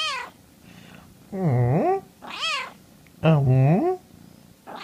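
Bengal kitten giving short, high-pitched meows about three times, taking turns with a man's lower, longer imitated "meow" calls twice in between.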